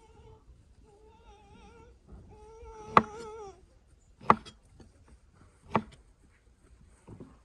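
Cleaver chopping feijoas on a wooden cutting board: three sharp knocks, each about a second and a half apart. Over the first half a wavering, high pitched call rises and falls.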